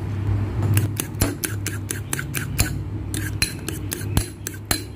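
Metal fork beating eggs and grated cheese in a bowl, its tines clicking against the bowl in quick, irregular strokes that start just under a second in.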